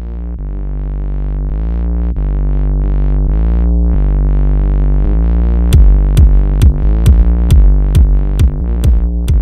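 Background music: sustained chords that swell in and shift every second or so, then a steady drum beat joins about six seconds in, roughly two hits a second.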